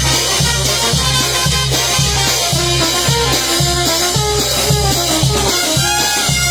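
Instrumental passage of Latin dance music played by a band, with no singing: a steady bass beat about twice a second under a sustained melody line.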